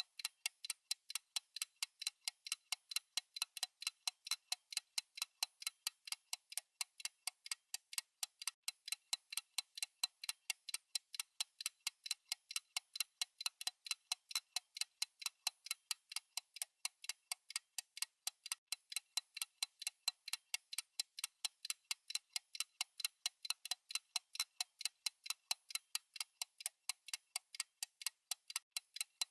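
Clock ticking sound effect of a countdown timer: rapid, evenly spaced, sharp ticks that keep a steady pace.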